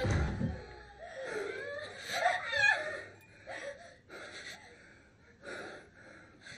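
A thump at the start, then a person moaning and gasping in short, breathy, wavering bursts.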